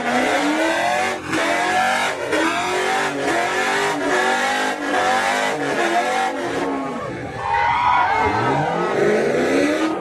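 Ford Mustang engine revving hard during a burnout, its pitch climbing and falling again and again while the spinning rear tyres screech. About seven seconds in the revs drop briefly, then climb again.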